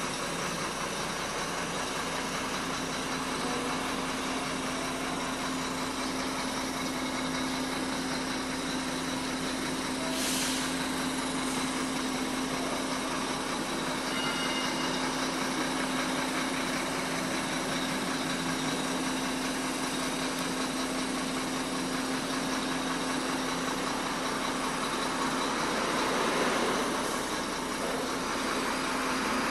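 Sinotruk Howo Max tractor head's diesel engine idling steadily, heard from inside the cab as an even hum. There is a brief click about ten seconds in.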